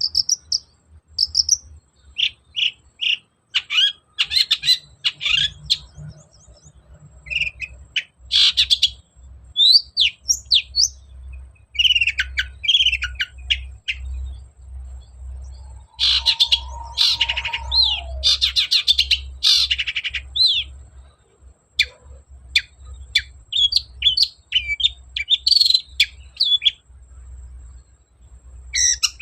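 Long-tailed shrike (cendet) singing a fast, varied song of short high chirps and trills in bursts. A lower, falling note comes about two-thirds of the way through.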